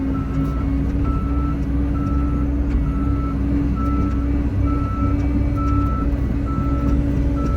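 Heavy-equipment backup alarm beeping steadily, a little more than one beep a second, over the steady running of a diesel engine.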